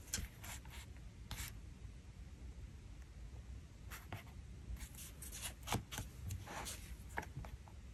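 Soft paper handling: fingertips pressing and rubbing a small sticker down onto a planner page, giving scattered faint rustles, scratches and taps.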